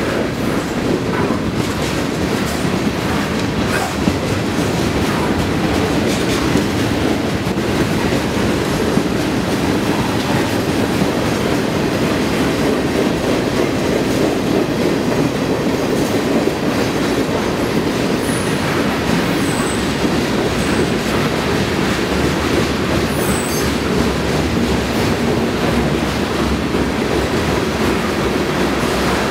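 Union Pacific freight train's cars rolling past close by: a steady rumble and clatter of steel wheels on rail, with a few brief, faint high squeals in the second half.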